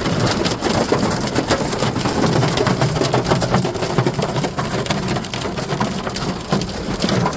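Hailstorm: hailstones pelting down in a dense, continuous clatter of many small sharp impacts.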